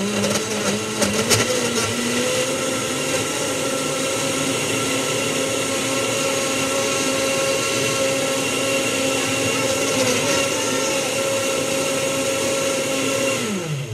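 Countertop blender running on almond milk and frozen banana: the motor spins up, with a few sharp clatters about a second in, runs steadily, then winds down and stops at the very end.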